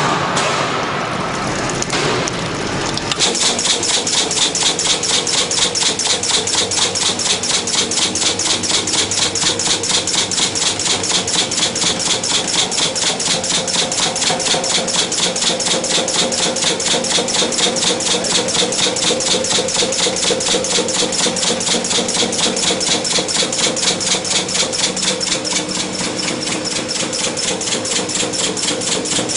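Water spraying; about three seconds in, a sink-welding machine starts up as its water-cooled copper roller head runs along the rim of a stainless steel sink bowl, giving a rapid, even pulsing buzz that holds steady.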